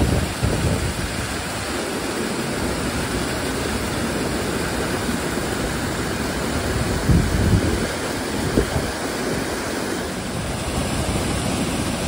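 Steady rushing of a stream pouring over rock ledges and chutes at the top of a waterfall. A few low wind gusts buffet the microphone about seven and eight and a half seconds in.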